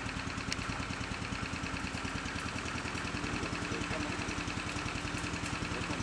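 An engine idling steadily with a fast, even pulse.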